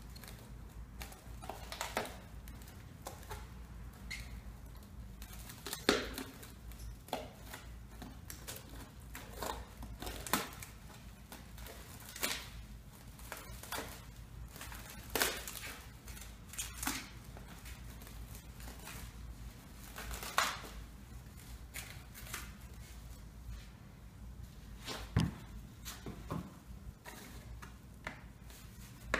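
Plastic wrap and a roll of used puppy pads being handled and pulled apart by hand on a dispenser spindle: irregular crinkles and clicks, with several sharper knocks.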